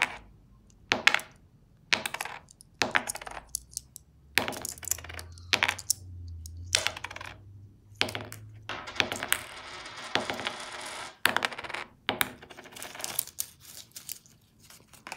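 Australian $2 coins clinking against one another in the hand and being set down one at a time on a tabletop, in sharp separate clicks. Partway through comes a short stretch of rustling from the paper wrapper of the coin roll.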